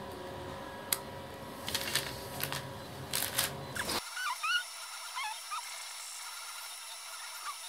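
Small side cutters snipping casting flash off cast silicone-sealant model tyres: a series of sharp clicks over the first four seconds. Then a few faint high chirps.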